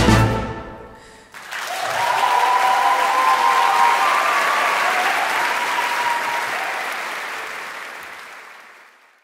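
The orchestra's final chord cuts off and dies away, then audience applause breaks out about a second in. The applause fades out near the end.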